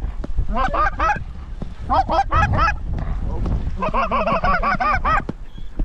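Geese honking and clucking in quick runs: two short bursts, then a longer, faster run of clucks near the end, with wind rumbling on the microphone.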